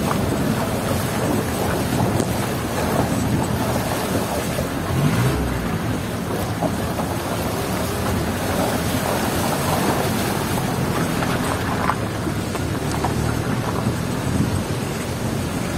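Vehicle riding a rough, rocky unpaved road, heard from inside the cabin by an open window: steady engine and road noise with a few faint rattles.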